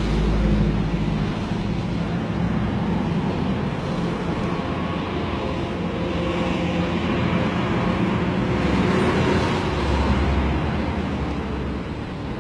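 A steady low engine hum from a motor vehicle, swelling a little about two-thirds of the way through.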